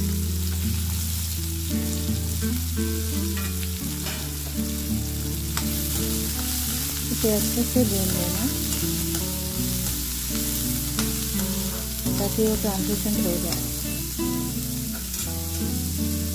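Chopped onions sizzling in hot oil in a kadhai, stirred and scraped around the pan with a metal spatula.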